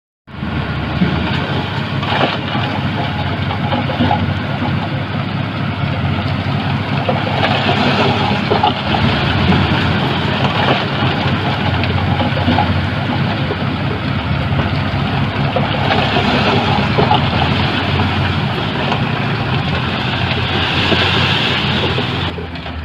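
Diesel engine of heavy earthmoving equipment running steadily under load, cutting in abruptly just after the start, with scattered knocks and clatter over it.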